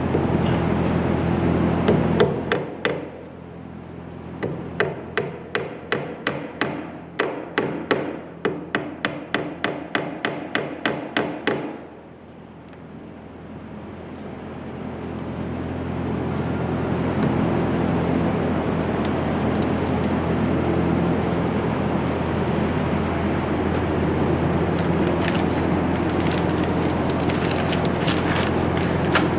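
A hammer striking in a quick even run, about three blows a second for some eight seconds. A steady mechanical hum runs before the blows and fades back in after them.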